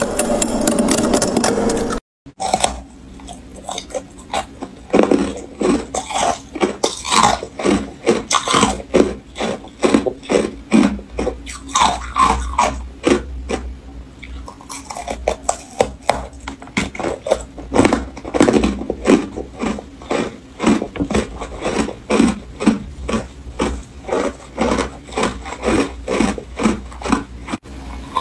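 Chunks of freezer frost bitten and chewed: a quick, irregular run of crisp crunches, several a second. Before this, in the first couple of seconds, there is a tool scraping packed frost inside a freezer compartment, which cuts off abruptly.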